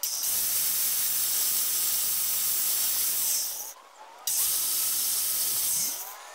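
Angle grinder with a flap disc running against the engine's front cover, a steady hissing grind. It cuts out about three and a half seconds in, starts again half a second later, and stops near the end.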